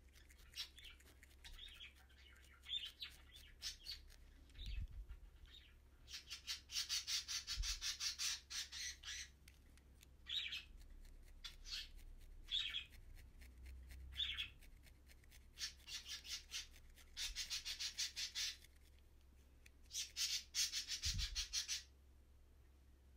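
Felting needle stabbing repeatedly into wool: several runs of rapid, scratchy pokes, each two to three seconds long, with single pokes between them and a few soft bumps.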